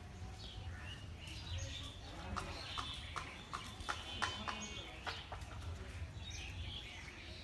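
Footsteps on a concrete railway platform: a run of sharp clicks, about three a second, through the middle, with birds chirping and a low steady rumble of wind on the microphone.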